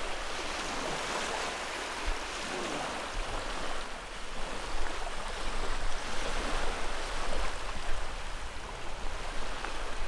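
Small waves washing onto a sandy shore: a steady rush of water with irregular swells, stronger from about halfway through.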